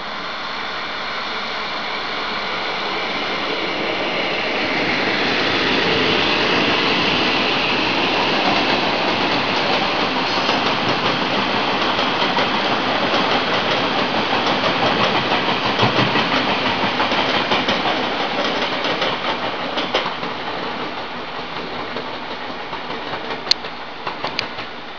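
Electric locomotive-hauled passenger train passing on the line: the rumble of wheels on rail swells for several seconds, stays loud through the middle and fades near the end, with clicks as the wheels cross the rail joints.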